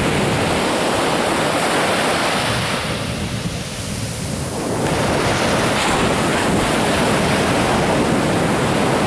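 Ocean surf breaking and washing onto a sandy beach: a steady rushing noise that eases for a moment a few seconds in, then swells back up.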